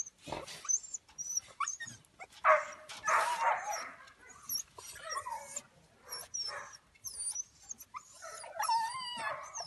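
Several dogs whining and yipping, with a few short barks, the loudest a little over two seconds in.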